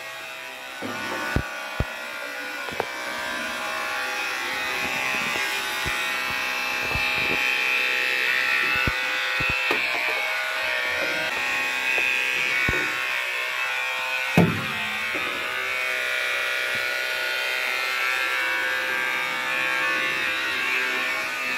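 Small battery-powered toy boat's electric motor and propeller running with a steady buzz, with scattered knocks and clicks throughout.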